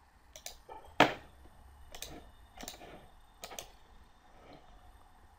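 Computer mouse clicks, about half a dozen spaced over a few seconds, some in quick pairs, the loudest about a second in.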